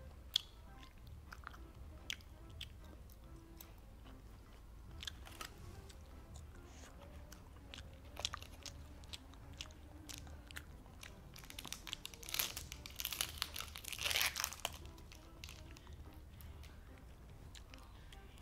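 Chewing and biting on soft gummy eyeball jelly candy, with scattered small wet clicks and smacks. About twelve seconds in, a couple of seconds of plastic crinkling and crackling as the blister pack of another eyeball jelly is peeled open.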